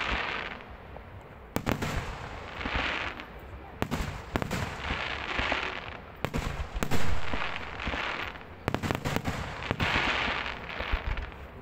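Aerial fireworks display: clusters of sharp bangs every two seconds or so, the loudest about seven seconds in, with a swelling hiss and crackle between the bursts.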